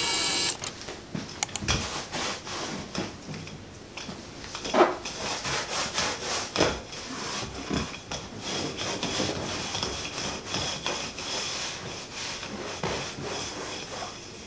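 Sticky lint roller being rolled over sofa upholstery and cushions: the tape rubs and pulls on the fabric in irregular strokes, with a few soft thumps as the cushions are handled.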